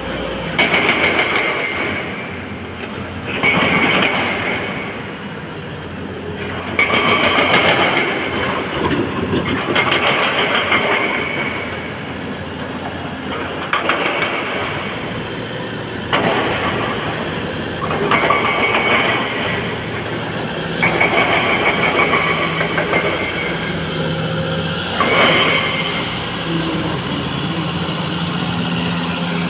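Tata TL340 wheel loader's diesel engine working under load. It swells louder in surges every few seconds, with a high whine, as the bucket pushes and spreads loose crushed stone.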